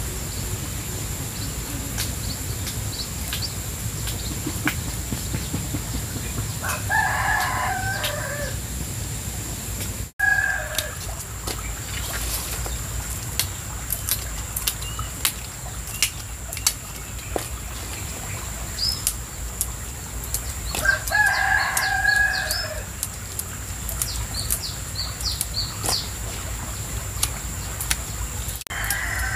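A rooster crowing twice, about 7 seconds in and again about 21 seconds in, each crow about a second and a half long, with a shorter call around 10 seconds in. Between the crows there are scattered light snaps as vegetable stalks are broken by hand, over a steady low background of running stream water.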